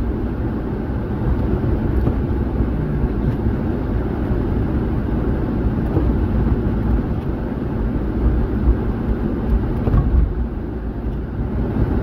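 Steady road noise inside a moving car's cabin: a low engine and tyre rumble with the hiss of tyres on a wet road.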